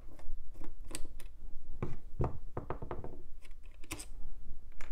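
Screwdriver and plastic CPU-cooler fan being handled: a run of small clicks, taps and knocks as the fan's screws are backed out and the fan is worked loose from its aluminium heatsink. The loudest knocks come about two seconds in and again near the end.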